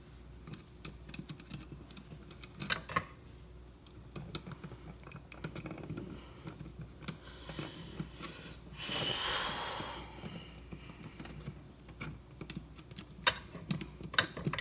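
Scattered light clicks and taps from wires and a GFCI outlet being handled during wiring, with a short hissing noise about nine seconds in.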